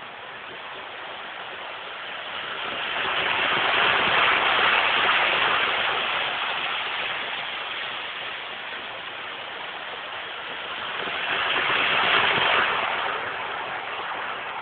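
00 gauge model train running on its track: a steady rushing whirr of motor and wheels on the rails that swells as the train comes close, loudest about four seconds in and again about twelve seconds in.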